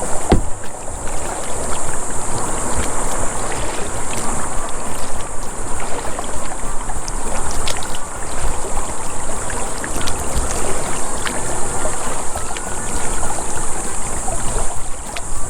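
Water sounds around a kayak drifting on a calm river: steady lapping and trickling with scattered small knocks. A constant high-pitched hiss runs over it.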